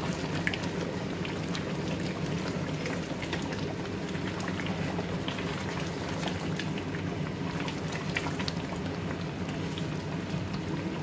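Thick tomato-and-onion chicken curry bubbling hard in an aluminium pot, with scattered sharp pops and spits as bubbles burst through the thick gravy, over a steady low hum. The heat has been raised, so the sauce splatters a lot.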